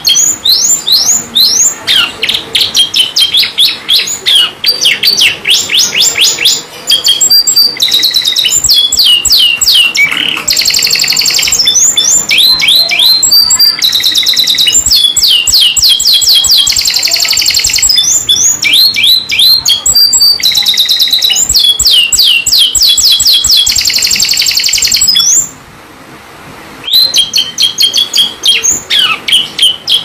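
Domestic canary singing vigorously: a long, fast song of quick falling whistles and rolling trills, breaking off briefly near the end.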